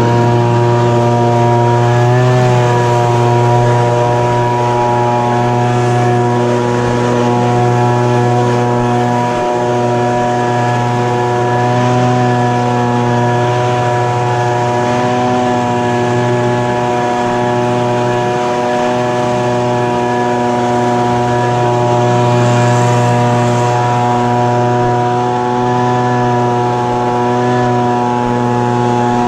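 Echo PB-2520 handheld leaf blower's small two-stroke engine running at a steady, fairly high speed, with the whoosh of the fan's air.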